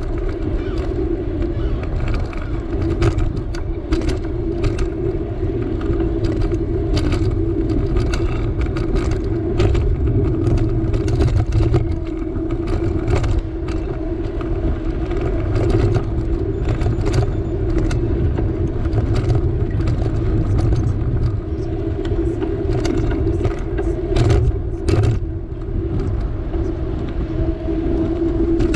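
Bicycle rolling along a concrete road, heard from a camera mounted on the bike: a steady rumble of wind and tyre noise with frequent clicks and rattles.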